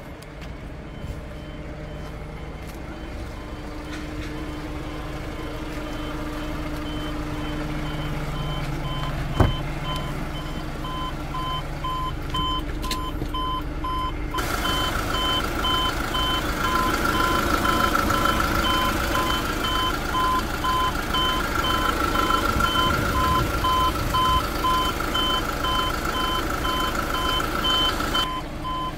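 Kia Bongo 3 tow truck's diesel engine idling while an electronic warning beeper repeats steadily, a higher beep joined by a lower one. There is a single knock about nine seconds in. From about halfway the engine sounds louder and fuller, heard through the open engine hatch under the cab seat.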